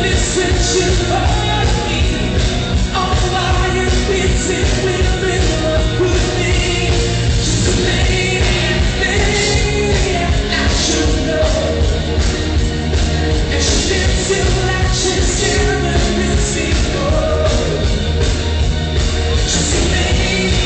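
Loud rock music with a singer, a band playing without a break.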